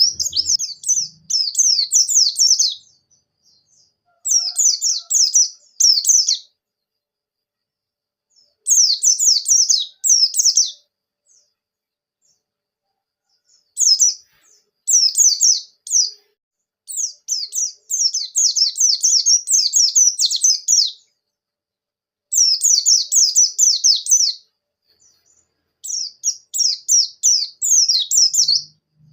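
Pleci buxtoni white-eye singing in about seven high-pitched bursts of rapid, quickly falling notes. Each run lasts two to four seconds, with short pauses between: a lively rolling song of the kind used to provoke other white-eyes into singing.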